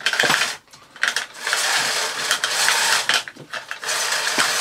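Miele S2111 vacuum cleaner's cord rewind reel winding the mains cable back in, its mechanism ratcheting and clattering in spells that stop and start.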